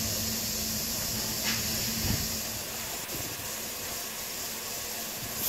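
Single Fairlie narrow-gauge steam locomotive hissing steadily as it tries to start a slate train. A low steady tone stops about two seconds in, with a brief thump.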